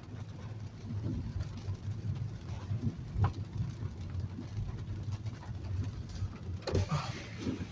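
Car cabin noise in a heavy rainstorm: a steady low rumble of the car with rain on the body, louder for a moment near the end.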